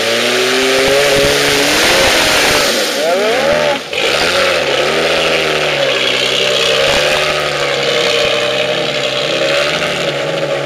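Nissan Patrol 4x4's engine revving up and down as it crawls up a loose dirt climb, its pitch rising and falling over and over. A brief break about four seconds in.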